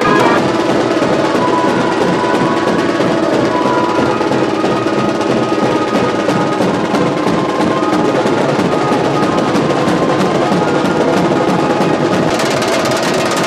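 Music led by fast, continuous drumming, with a few held tones running under it.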